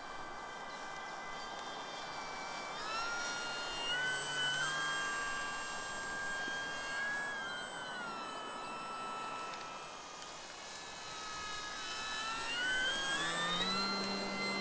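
Durafly Slow Poke RC plane's electric motor and propeller whining in flight, the pitch rising about three seconds in, easing back near the middle, and climbing again near the end as the throttle changes.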